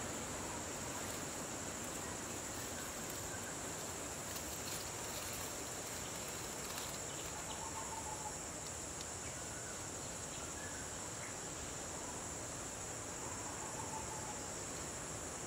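Steady chorus of insects, a continuous high shrill, with a few faint short chirps about halfway through and near the end.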